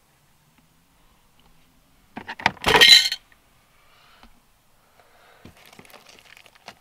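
The glove box of a 1998 Mitsubishi Lancer being unlatched and swinging open, a few clicks and then a loud plastic clatter with its contents rattling about two to three seconds in. Faint rustling and small clinks follow as the items inside are moved about by hand.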